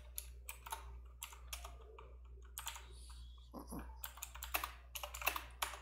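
Typing on a computer keyboard: an irregular run of keystrokes entering a terminal command.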